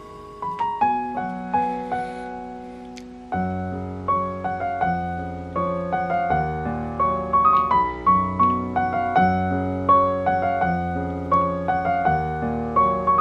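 Background piano music: a gentle melody of struck, fading notes, with a lower bass part coming in about three seconds in.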